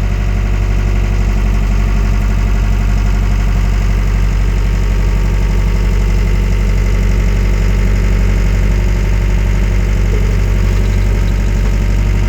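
Wacker Neuson 901s skid steer's diesel engine idling steadily.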